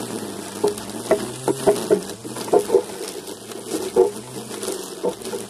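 Cordless battery-powered mower running while cutting grass, its motor humming faintly under irregular short knocks and clatters as it works.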